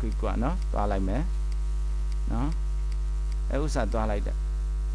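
Steady low mains-electrical hum picked up on the recording, near 50 Hz with a ladder of steady overtones above it. A man's voice speaks a few short phrases over it.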